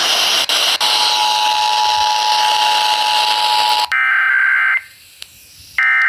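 Emergency Alert System two-tone attention signal heard through heavy FM radio static, briefly dropping out under a second in. About four seconds in it gives way to the digital SAME header data: a warbling burst of about a second, a second's pause, then a second burst.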